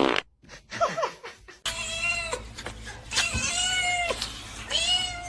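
Domestic cat meowing: a short falling meow about a second in, then three longer meows, each holding its pitch and dropping at the end.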